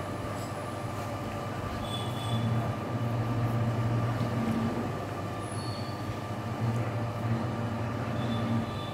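Steady low mechanical rumble with a thin steady whine above it, swelling and easing every second or two, with a few brief faint high tones.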